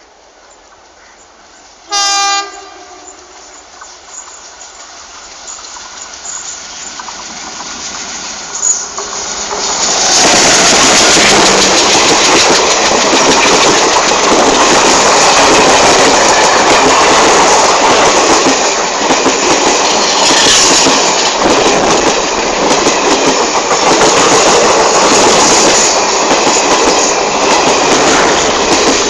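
A diesel locomotive sounds one short, loud horn blast about two seconds in. The express train then comes on and passes close at speed, its wheels clattering loudly over the rail joints for the rest of the time.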